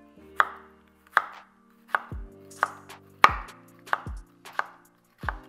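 Chef's knife dicing a tomato on a wooden cutting board: about eight sharp knocks of the blade striking the board, evenly paced at roughly one every two-thirds of a second.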